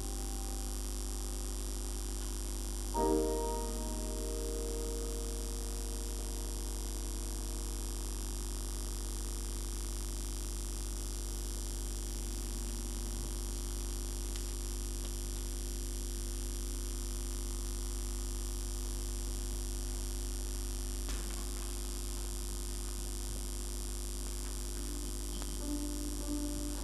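Grand piano chord struck about three seconds in and left to ring away, then a long hush filled by a steady mains hum and hiss with only faint notes. Soft notes return near the end.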